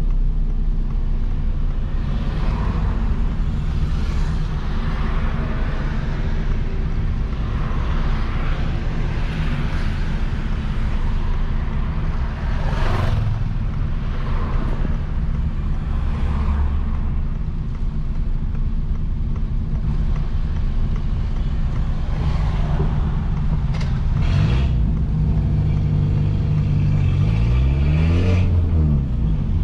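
Peugeot 206 1.4 four-cylinder engine on a straight pipe with no mufflers, running steadily under way. Near the end the engine note rises and falls.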